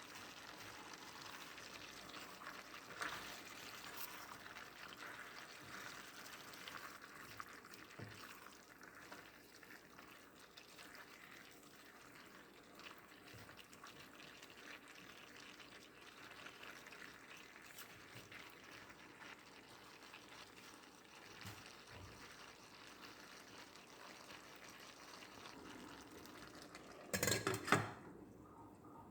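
Faint, steady running water in a kitchen, briefly louder near the end.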